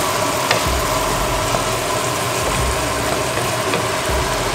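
Fish curry sizzling steadily in a frying pan after a splash of water has been added. A wooden spatula gives a few light taps and scrapes as stirring begins near the end.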